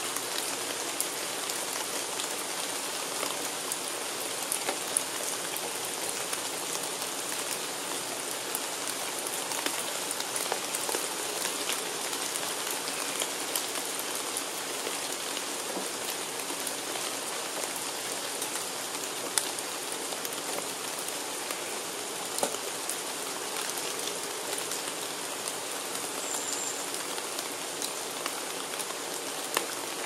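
Steady rain falling on forest foliage: an even patter with single drops ticking close by. A bird gives one brief high note near the end.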